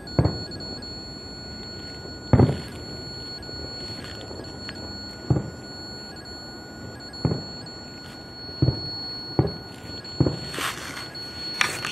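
A series of short, dull thumps at irregular intervals, about nine in all and closer together near the end, over a faint steady high-pitched tone.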